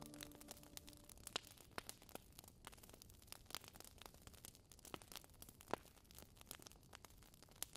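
Faint scratching and ticking of a black pen drawing lines on paper, short irregular clicks a few times a second over a quiet hiss.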